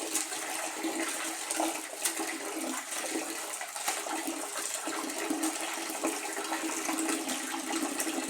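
Water running and splashing as leafy vegetables are washed by hand, with small splashes and handling knocks over a steady rush of water.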